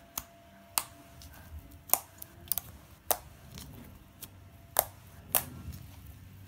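Fingers poking and squeezing foamy bubbly slime made with shaving cream and foaming hand soap. It gives sharp little pops and clicks at irregular moments, roughly one a second.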